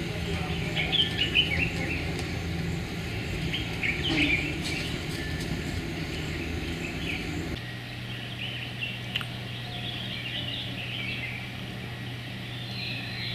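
Birds chirping and calling over a steady low motor hum. About seven and a half seconds in, the hum changes abruptly to a different, steadier drone, and the bird calls carry on.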